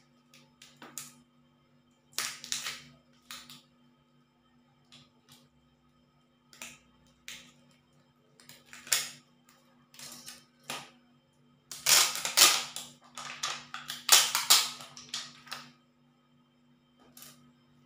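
Cracked screen of a Samsung Galaxy J6 being pried off its frame with a blade: irregular clicks and crackling of glass and screen adhesive giving way, with a dense run of crackling about twelve seconds in.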